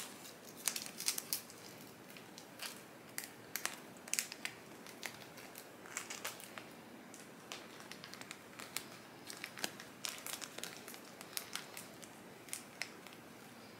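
Plastic zip-top bag, packed with damp moss and wrapped around a plant stem, crinkling in short, irregular rustles and crackles as it is handled and pressed closed with tape.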